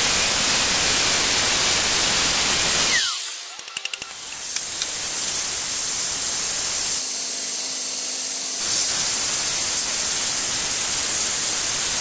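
An angle grinder running with a faint high whine as it cuts through metal stock, throwing sparks. About three seconds in it gives way to a belt grinder running steadily with steel pressed against the belt.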